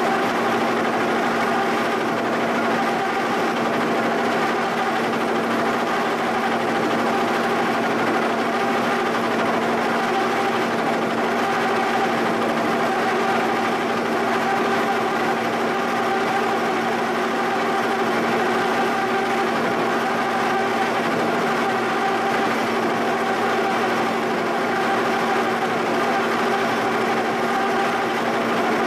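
Giddings & Lewis horizontal boring mill running steadily, its end mill cutting along the face of a cast iron shaper casting, with a constant hum and whine of spindle and cut.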